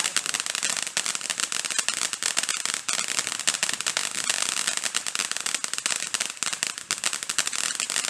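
Consumer firework crackling: a dense, rapid stream of small sharp pops that keeps going without a break.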